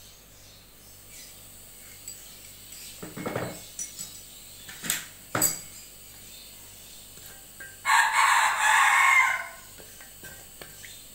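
A rooster crows once, loudly, for about a second and a half near the end. Before it come a few sharp clinks of a utensil against the stainless steel pot in which cumin seeds and bay leaf are heating in oil.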